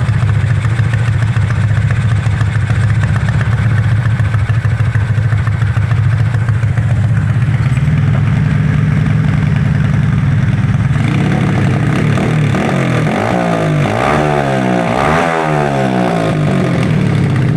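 Motorcycle engine with a 57mm big-bore block and an ORBR 'chicken pipe' exhaust, running steadily, then revved up and down several times from about eleven seconds in.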